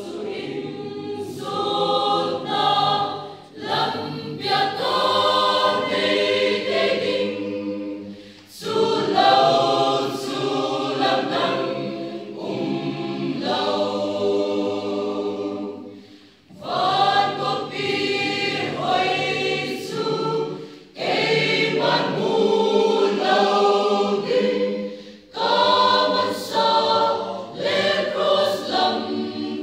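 Mixed choir of young women and men singing together, in sung phrases separated by brief breath pauses.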